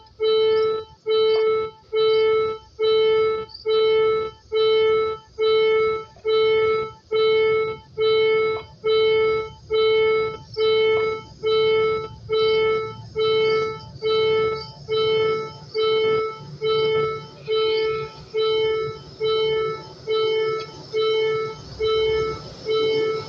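Railway level-crossing warning signal sounding its repeated electronic bell tone, about three even tones every two seconds, while the barriers are down. A low hum grows faintly underneath in the second half.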